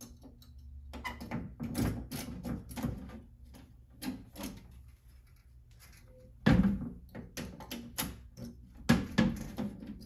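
Lock picking in the wafer lock of a Fire-Lite MS-9200UDLS fire alarm control panel: a run of small metallic clicks and scrapes as pick and tension wrench work the lock. The panel's hinged steel door then clunks loudly about six and a half seconds in as it swings open, and clunks and clicks again near the end as it is pushed shut.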